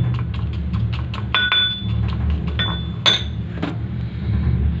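Steel pestle pounding dried red chillies and salt in a small stainless steel mortar: quick metallic clinks, several strikes a second, some ringing briefly. The strikes thin out after about three and a half seconds.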